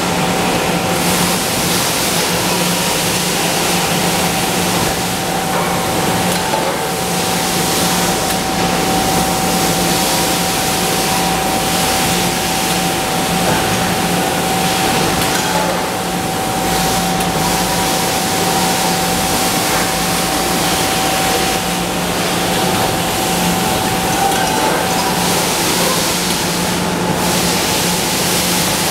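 Steady machinery noise of an aluminium cookware production line: a dense, even hiss with a constant low hum and a steady higher whine, and no single event standing out.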